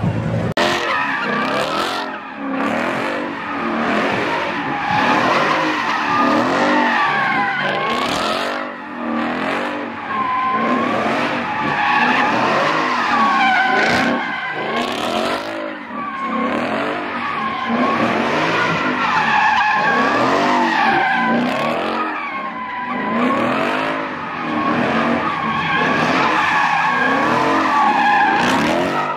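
A car drifting, its tyres squealing continuously while the engine revs up and down over and over.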